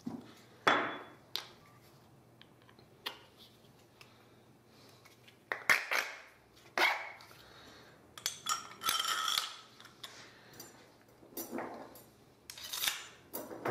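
Metal parts of a homemade portable grill, thin steel rods and a metal tube, clinking and clattering as they are picked up and laid down. The knocks come singly and in small clusters with quiet gaps between, busiest a little past the middle, where some strikes ring briefly.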